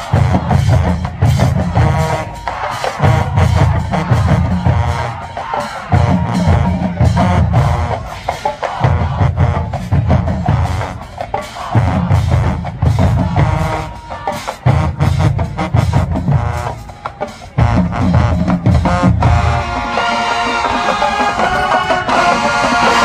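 High school marching band playing in the stands: brass over a drumline with a heavy, repeating bass-drum beat and sharp snare and cymbal hits. About 20 seconds in, the drums drop out and the brass holds sustained chords.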